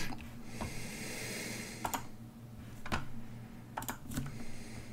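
Computer mouse clicking, about five short sharp clicks at irregular intervals, over a faint steady low hum. A soft breathy hiss lasts for about a second near the start.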